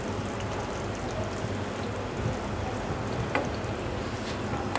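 Egg masala gravy simmering in a frying pan after the heat is turned off: a steady soft bubbling hiss over a low hum, with one faint tick.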